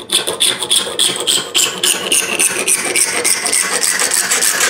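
Small fine-tooth back saw cutting through clear acrylic sheet with rapid back-and-forth strokes, a rasping sound with a ringing tone that slides steadily lower as the cut goes on.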